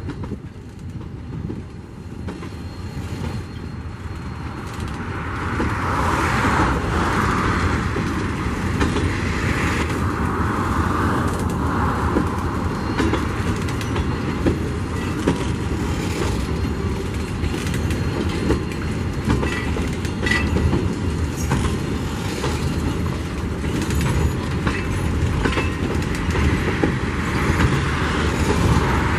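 Loaded mineral hopper wagons of a freight train rolling past close by: a continuous rumble of steel wheels on rail, with a rapid clicking and clatter from the wheels and couplings. It gets louder about five seconds in and then holds steady.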